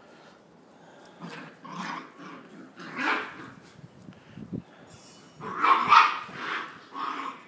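Dog barking in a series of short barks, with a close burst of the loudest barks about six seconds in.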